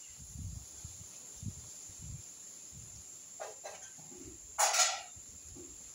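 A dog barks once, short and loud, a little before the end, after two fainter short yaps.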